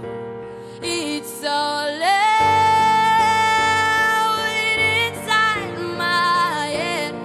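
A woman singing with instrumental accompaniment: she slides up to one long held note about two seconds in, keeps it for about three seconds, then sings shorter rising and falling phrases.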